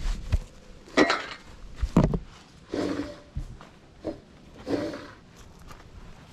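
Two sharp knocks about a second apart, then several shorter scraping and clanking sounds from handling tools and the mower deck's metal parts.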